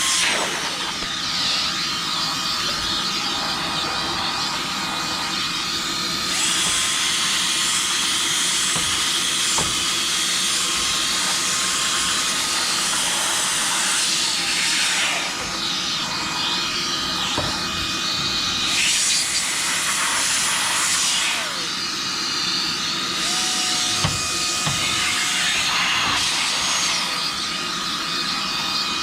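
Cordless high-speed electric blower or cleaner running, a loud rush of air over a steady motor whine, while dust is cleaned out of a fan convector heater. The hiss of the air brightens and dulls several times as the tool is moved and worked.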